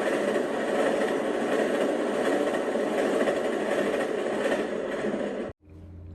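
Train running by with a steady, loud rail and engine noise, cut off abruptly near the end, after which only a quieter low hum remains.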